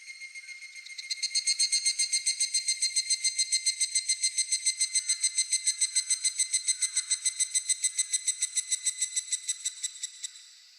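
An evening cicada (higurashi) calling: a loud, rapid, evenly pulsed trill that starts about a second in and stops near the end, over steady high-pitched insect drones.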